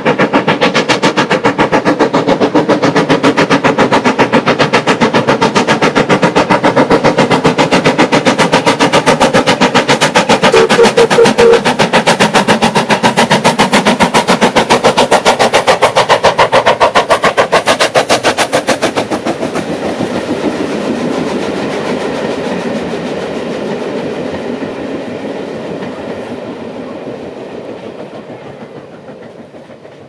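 LMS Stanier Black Five steam locomotive passing with a rapid, regular chuff of exhaust beats, together with the clatter of its carriages on the rails. The sound drops off about two-thirds of the way through and fades away as the train moves on.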